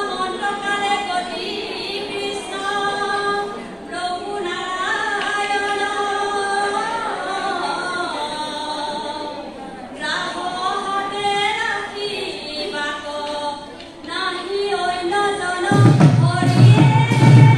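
A group of women singing an Assamese diha naam devotional chant together, unaccompanied, the melody rising and falling in long sung lines. Near the end loud instrumental accompaniment joins in with a deep low sound and clashing strokes, and the whole grows louder.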